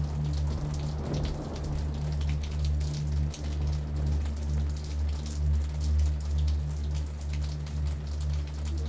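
Rain falling, with scattered single drops clicking over the steady hiss, on top of a steady low hum.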